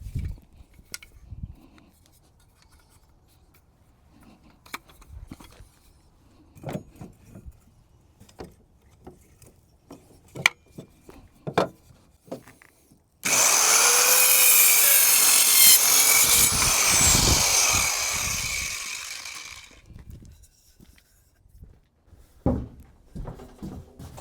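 A few scattered knocks and taps of lumber being handled, then a power saw cuts through a scrap two-by board for about six seconds. The saw starts suddenly and winds down gradually at the end.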